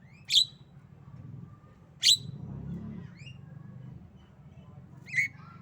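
Javan myna giving three loud, very short calls, each a quick upward sweep, spaced about two to three seconds apart, with softer short chirps between them over a low steady hum.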